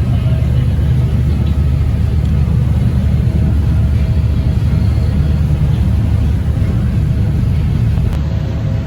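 Ferry's engines running with a steady, loud low rumble, heard from on board the vessel.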